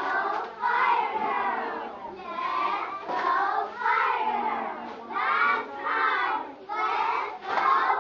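A group of young girls chanting a cheer together in unison, in short rhythmic phrases about one a second.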